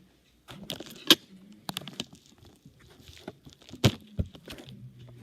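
Eating sounds: a fork clicking and scraping against a plate, with several sharp, irregular knocks, the loudest about a second in and again near four seconds.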